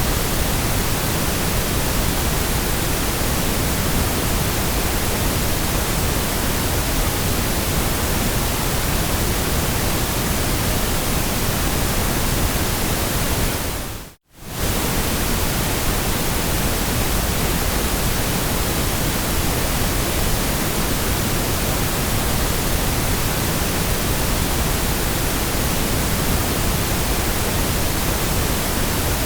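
Steady white noise: an even, featureless hiss. It fades out to near silence for about half a second halfway through, then comes back at the same level.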